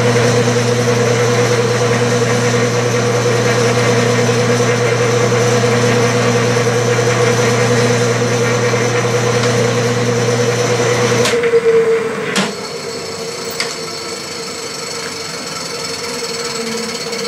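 Clausing metal lathe running in back gear at slow speed with a steady hum while it takes the final threading pass on a double (two-start) thread. About eleven seconds in, the hum cuts off suddenly and the machine runs on more quietly, with a few light clicks.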